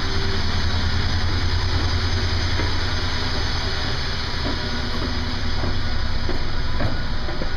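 Steady low drone of the research vessel Knorr's engines and machinery inside the ship. A few light footsteps on stairs come through from about four and a half seconds in.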